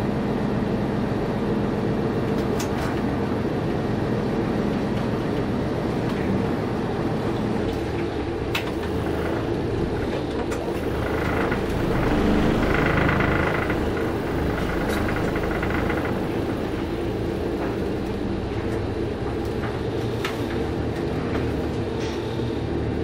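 Large bus engine running as the bus drives, heard from inside the cabin, with a few sharp clicks and rattles. It gets a little louder about halfway through.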